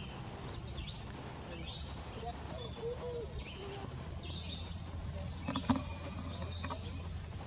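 Birds giving short, scattered high chirps over a steady low outdoor rumble. A sharp knock comes a little past halfway.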